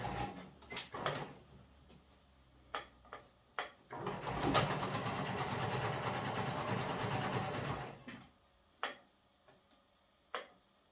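Janome sewing machine stitching a straight-stitch hem through double-folded towelling: a couple of short bursts at the start, then a steady run of about four seconds. A few single clicks come in between and after.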